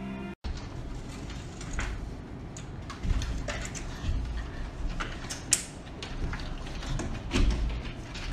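Scattered clicks, taps and creaks from a window frame and sash as Alaskan malamutes lean their front paws on it, with a few soft low thumps and one sharp click about five and a half seconds in.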